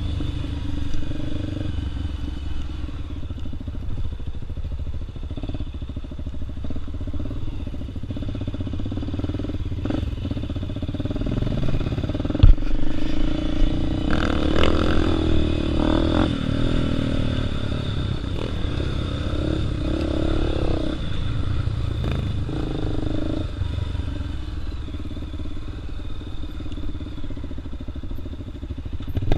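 Dirt bike engine running at low trail speed, heard from the rider's own machine, its note rising and falling with the throttle through the middle stretch. Chassis clatter from rough ground, with one sharp knock near the middle.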